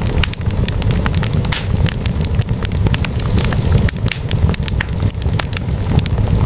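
Logs burning in a fireplace, crackling with many irregular sharp pops over a steady low rumble.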